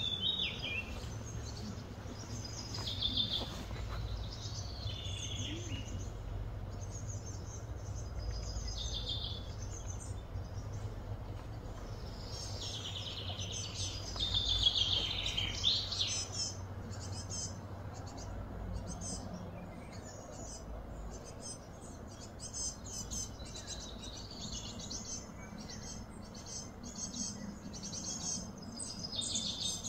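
Wild birds chirping and calling again and again, with a burst of louder, falling calls about halfway through and quicker chirps near the end, over a steady low hum of outdoor background noise.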